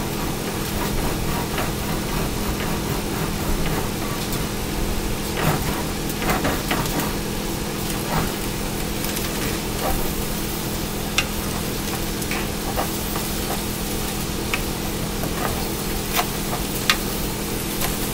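Scrambled eggs cooking in a large skillet while a silicone spatula stirs and scrapes them around the pan, with occasional sharp taps of the spatula on the pan. A steady low hum runs underneath.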